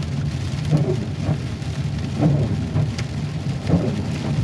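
Heavy rain pelting a car during a thunderstorm, heard from inside the cabin while driving on a flooded road, over a steady low road and engine rumble. A sharp click sounds about three seconds in.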